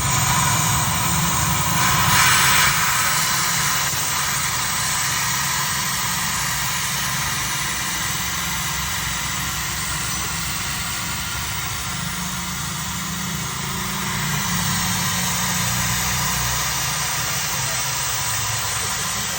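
Honda Civic engine idling with the AC compressor running, a steady mechanical hum with an even hiss over it; this is the compressor noise the owner is trying to fix.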